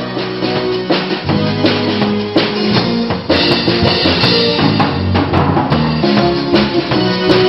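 A red BOLE drum kit played in a busy pattern of snare, bass drum and cymbal crashes, over a band's bass line of held low notes that step up and down.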